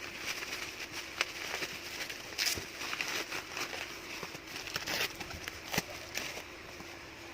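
Packaging being handled while unboxing a mini rice cooker: crinkling and rustling with irregular light clicks and taps, dying down near the end.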